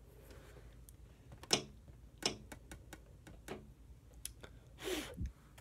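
Makeup being handled: several short plastic clicks and taps, two of them louder, then a brief louder rustle near the end.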